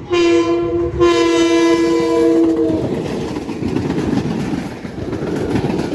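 Long Island Rail Road train sounding its multi-tone horn, a short blast and then a longer one lasting almost two seconds, followed by the steady rumble and clatter of the train rolling past.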